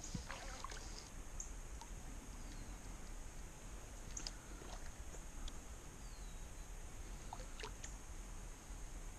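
Quiet river ambience heard from a kayak: a steady high insect drone and low wind rumble, with a few small water splashes and knocks scattered through.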